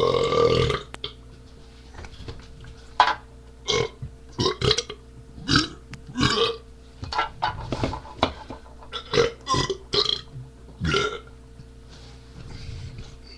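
A man burping: one long, loud burp right at the start, then a string of about a dozen short burps over the next several seconds, over a faint steady hum.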